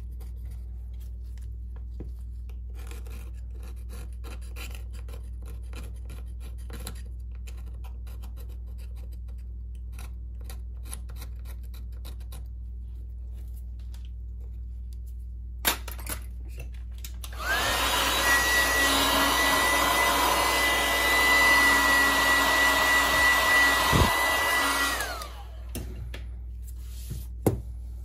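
Light scratching and clicking of a small metal tool on an opened smartphone's frame, then a handheld electric blower spins up with a steady whine, runs for about seven seconds and winds down.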